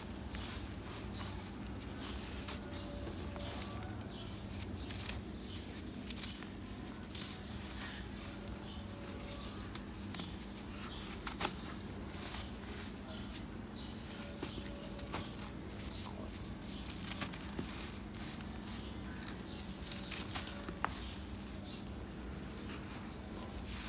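A hand crumbling and raking through dry red dirt clods: a steady run of soft, gritty crackles and rustles, with a few sharper snaps, over a steady low hum.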